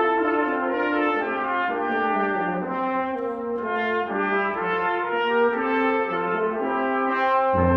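Brass ensemble playing slow, sustained chords in several parts, with low bass notes coming in near the end.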